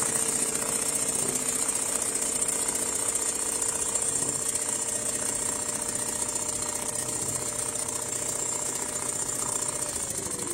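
Richpeace automatic CNC sewing machine stitching at speed: a rapid, steady needle clatter over a steady motor whine, which begins to slow and drop in pitch near the end.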